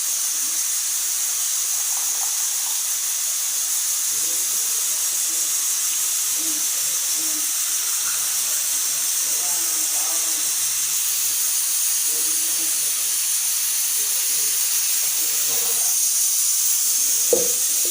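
Hot herbal kashayam being poured through a strainer: a steady watery hiss, with a single knock near the end.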